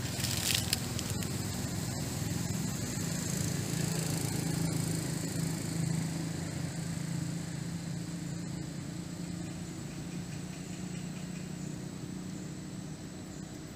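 Steady low engine hum from a distant motor, growing a little louder over the first few seconds and then slowly fading, with a short rustle about half a second in.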